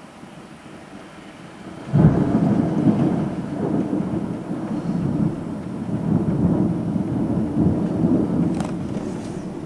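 Rain falling steadily. About two seconds in, a loud clap of thunder sets in suddenly and rolls on as a long, deep rumble, slowly fading.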